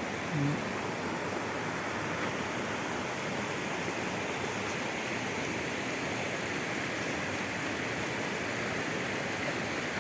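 Steady rush of fast-flowing Alpine water, an even unbroken roar.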